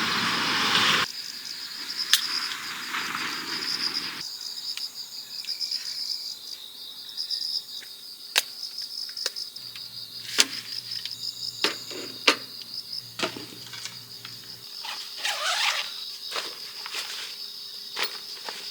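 Crickets chirping in a steady, high, pulsing trill, with rustling in the first few seconds and scattered light clicks and taps of things being handled.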